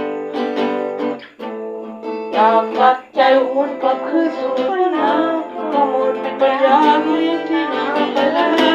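Steel-string acoustic guitar strummed and picked in chords, with a boy's voice singing along over it.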